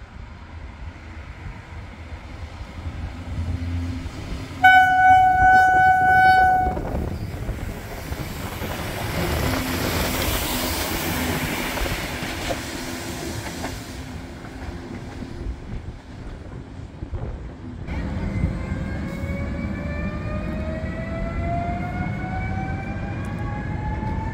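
A diesel railcar sounds one steady horn blast of about two seconds, then rolls past with its engine hum under a rushing noise. After that an electric multiple unit's traction whine rises slowly and steadily in pitch as it pulls away.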